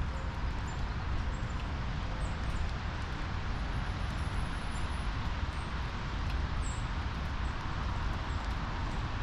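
Outdoor ambience: a steady low rumble, with short high bird chirps scattered through.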